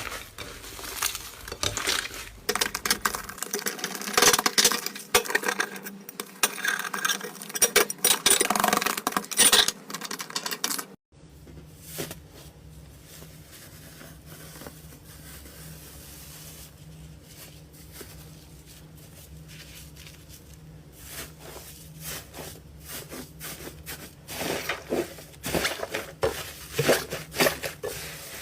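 Slime being squeezed and pressed by hand, with dense crackling and popping clicks. About eleven seconds in it cuts to a quieter stretch with a low steady hum under sparse clicks, and it turns crackly again near the end.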